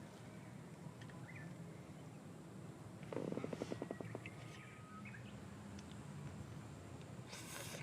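Faint bird chirps over a steady low rumble. About three seconds in comes a quick rattle of a dozen or so rapid pulses, and a short hiss near the end.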